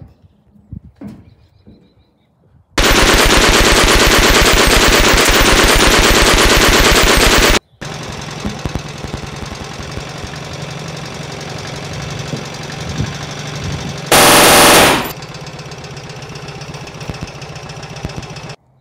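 Machine-gun fire sound effect: a loud, rapid, even burst lasting about five seconds and stopping abruptly. It is followed by a quieter steady noise with another short loud burst about two-thirds of the way through, which also cuts off suddenly near the end.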